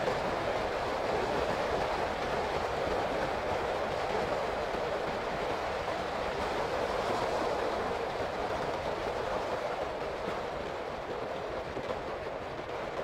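Steady rushing wind and road noise from a Honda CB150R motorcycle on the move, easing a little near the end.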